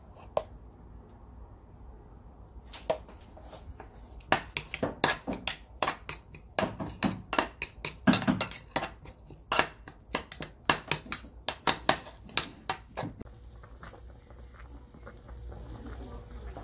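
Metal spoon clinking and scraping against a small ceramic bowl while stirring a thick seasoning paste, with many quick knocks over about ten seconds. Near the end this gives way to a softer, steady noise of a pan at a rolling boil.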